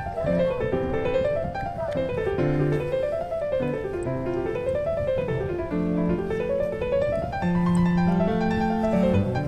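Background piano music: runs of notes rising and falling in waves over slow, held low bass notes.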